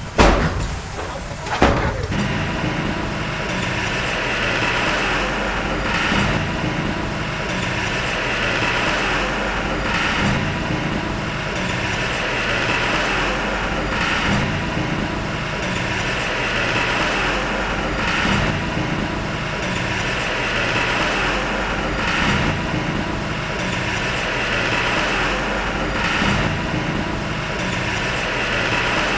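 Heavy diesel earthmoving machine running steadily, its sound swelling and easing about every two seconds. Two loud bangs sound in the first two seconds.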